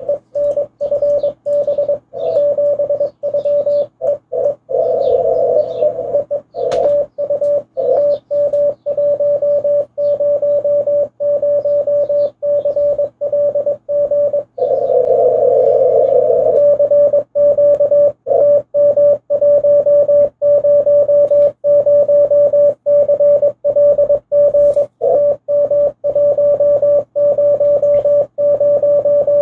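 Morse code (CW) on an amateur radio transceiver: a single steady mid-pitched tone keyed rapidly in dots and dashes, spelling out call signs and a thank-you in a contact exchange. Twice the keying gives way briefly to a patch of hiss.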